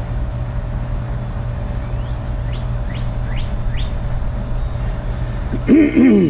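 A steady low hum, with a bird giving four quick rising chirps between about two and a half and four seconds in. Just before the end comes a short, loud sound whose pitch falls.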